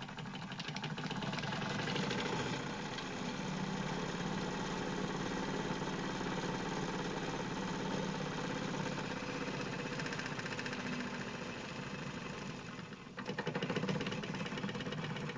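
Wilesco toy live-steam engine running at a steady fast pace, turning a line shaft and belt-driven model drill, circular saw and grinding wheel: a continuous rapid mechanical beat that dips briefly near the end.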